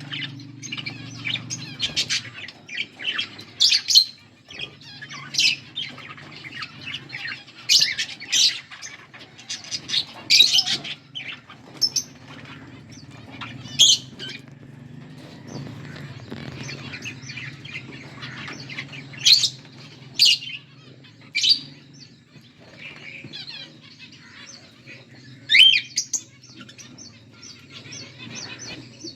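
A pair of pet budgerigars chirping and chattering, with frequent short, sharp squawks at irregular intervals over a steady low hum.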